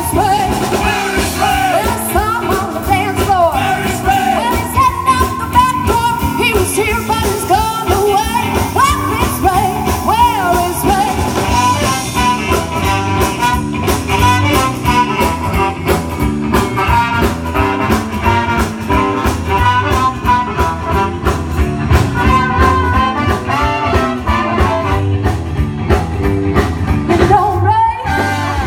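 Live modern swing/soul band playing: a woman singing over electric guitar, electric bass, drums and a horn section of trumpet, saxophone and trombone. From about halfway the beat grows busier and more even.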